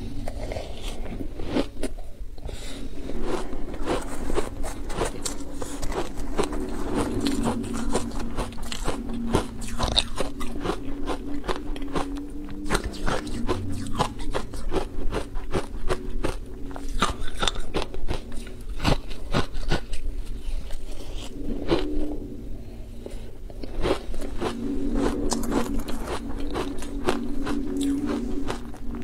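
Close-miked chewing and crunching of icy chunks coated in green powder, full of crisp crackles, with a metal spoon now and then scraping the plastic bowl.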